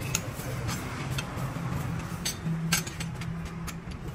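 Metal tools clinking and tapping against metal parts: about half a dozen sharp strikes, irregularly spaced, over a steady low hum.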